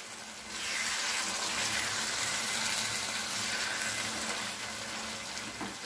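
Thick tomato chutney sizzling in oil in a frying pan while a silicone spatula stirs it. The hiss swells about half a second in and eases a little near the end. The chutney has cooked soft after about 15 minutes covered on a medium flame.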